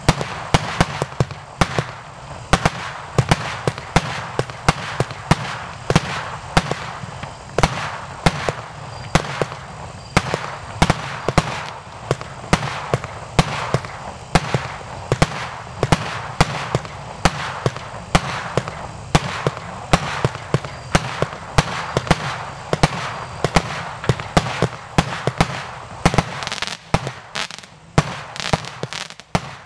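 A 140-shot consumer firework cake (Happy Power 140's) firing in rapid succession: a steady run of launch thumps and small star bursts, several shots a second, thinning a little near the end.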